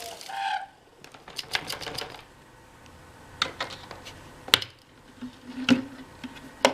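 Scattered sharp clicks and knocks of the homemade cyclonic vacuum being handled with its motor off: a quick cluster about a second and a half in, then single knocks, the loudest about halfway through.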